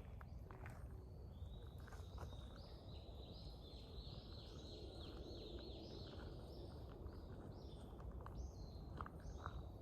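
A bird singing faintly: a long run of quick, repeated falling notes that starts about a second and a half in and runs almost to the end, over a low steady outdoor rumble with a few light knocks.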